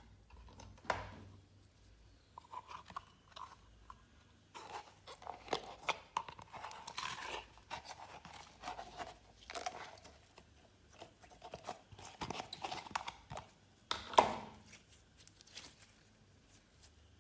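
Glossy slime being squished, stretched and folded by hand, giving irregular wet clicks and crackling pops, with one sharper, louder pop near the end.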